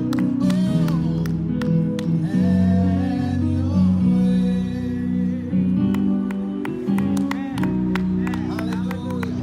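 Worship music: a song with singing over guitar accompaniment, playing steadily throughout.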